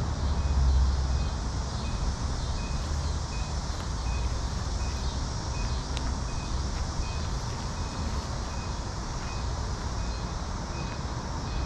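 Steady outdoor street noise with a low rumble, a little louder in the first second. A faint high electronic beep repeats about twice a second.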